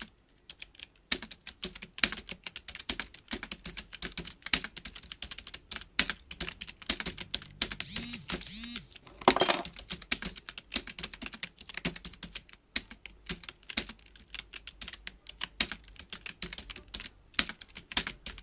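Fast, irregular keystrokes on a computer keyboard, someone touch-typing a passage during a timed typing-speed test, with one louder knock about nine seconds in.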